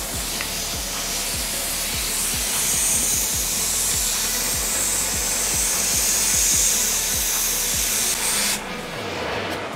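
Oxy-acetylene cutting torch on a CNC table cutting through thick steel plate: a steady, loud hiss of the cutting-oxygen jet throwing out sparks. The hiss cuts off suddenly near the end, under background music with a steady low beat.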